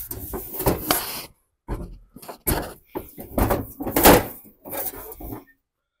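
Hood of a Craftsman riding mower being handled and fitted into place while it hangs from a hoist chain: a string of irregular clunks, knocks and rattles.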